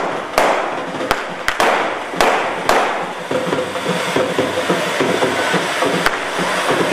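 Ground fountain fireworks hissing as they spray sparks, with sharp firecracker cracks about every half second over the first three seconds, fewer after that.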